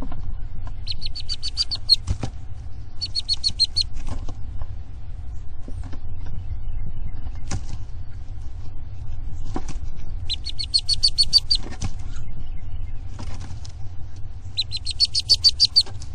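A bird's fast, high trill of rapidly repeated notes, rising slightly in pitch, heard four times, each about a second long. A low steady rumble runs underneath.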